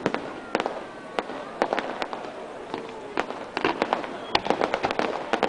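Fireworks going off: a rapid, irregular string of sharp cracks and bangs, with faint crowd chatter underneath.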